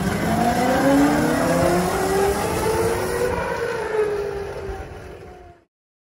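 Electric whine of the kart's sensored brushless motor under VESC control, rising steadily in pitch as the half-size car accelerates away. The whine levels off and dips slightly, fades, then cuts off abruptly near the end.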